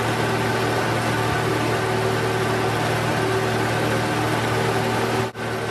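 Piston engine and propeller of a small single-engine airplane, heard inside the cockpit: a steady drone during the climb-out after takeoff. The sound cuts out for an instant near the end.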